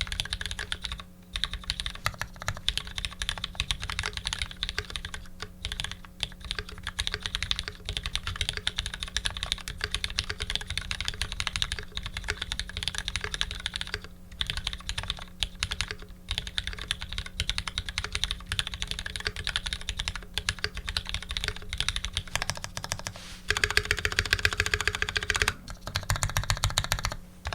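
Steady fast typing on a custom 65% mechanical keyboard with lubed Retooled Black linear switches, GMK keycaps and an aluminium plate: a dense stream of key strikes. The strikes grow louder and faster for about two seconds near the end.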